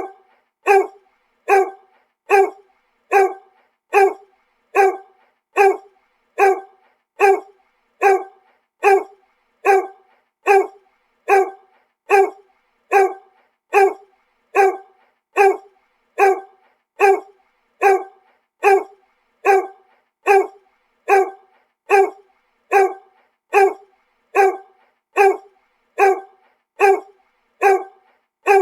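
A dog barking single short barks at a steady, even pace of a little over one bark a second, each bark sounding alike.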